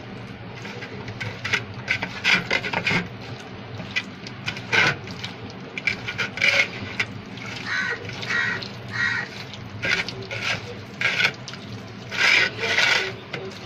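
A bare hand mixing raw prawns into a wet spice paste on a steel plate: irregular wet rubbing and squishing strokes of hand and prawns against the metal.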